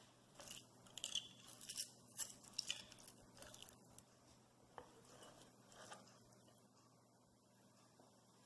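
Faint clicks and light knocks of a glass bowl being handled and turned upside down onto a plastic cutting board to unmould a set turnip cake. The clicks come mostly in the first four seconds, with a couple more a little later.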